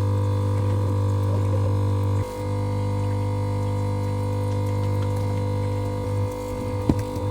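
Steady electrical hum with a low drone and several steady tones above it. It dips briefly a little over two seconds in, and there is a single sharp click near the end.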